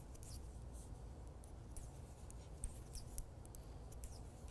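Knitting needles faintly clicking and yarn rubbing as stitches are worked by hand: scattered light ticks and scratches over a low steady hum.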